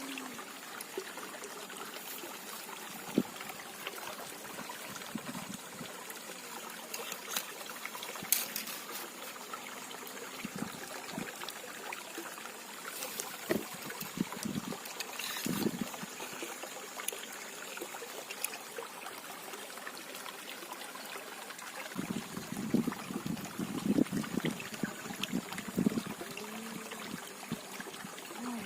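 Water trickling and flowing steadily, like a small stream or outflow, with a few short clicks and, near the end, a spell of knocks and rustles close by.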